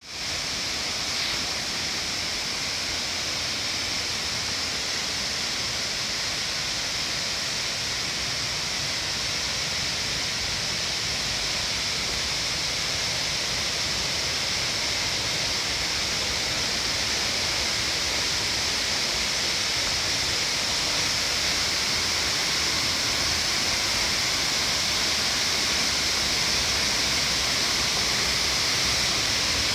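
Waterfall rushing in a steady, unbroken hiss of falling water, growing slightly louder toward the end.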